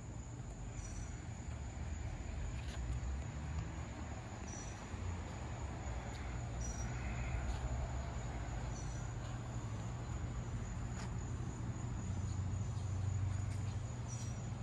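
Steady high-pitched insect trill, cricket-like, over a continuous low rumble.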